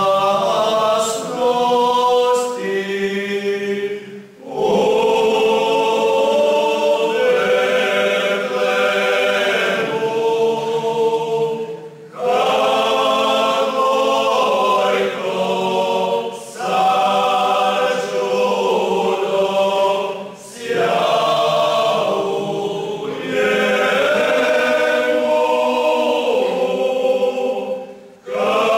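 Male vocal group singing a cappella in several parts. The voices sing in phrases of several seconds, with short breath pauses between them.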